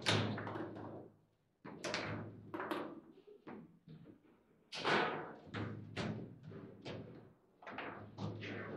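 Table football (foosball) in play: the ball is struck by the rod-mounted player figures and bangs against the table, making a series of sharp knocks and thuds. The hardest hits come right at the start and about five seconds in.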